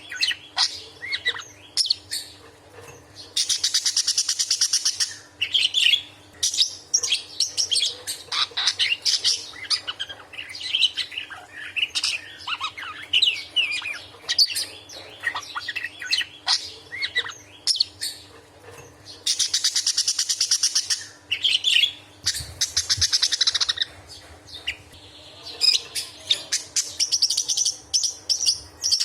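A budgerigar chattering and warbling in quick high chirps. Several times it breaks into harsh, rapid buzzing trills lasting a second or two each: the sharp scolding chatter of an agitated, angry bird.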